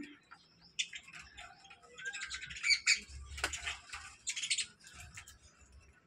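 A flock of budgerigars chirping and warbling together, a busy run of short, high chirps that is thickest in the middle.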